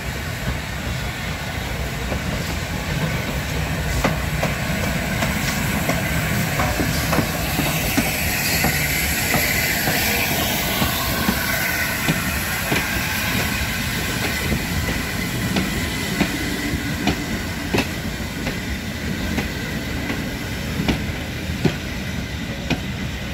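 Steam train running by: a continuous rumble with wheels clicking over rail joints, and a hiss of steam that swells about halfway through.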